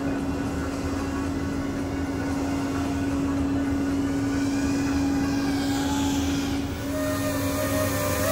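iFlight Nazgul FPV quadcopter's motors and propellers buzzing with a steady hum. About seven seconds in, a second, higher set of motor tones comes in and the sound grows louder as the quad closes in.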